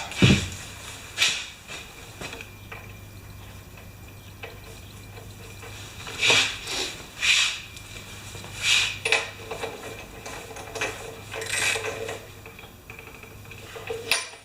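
Metal hand tools clinking and clattering in several separate bursts while a spark plug is put back into a Briggs & Stratton mower engine, over a low steady hum.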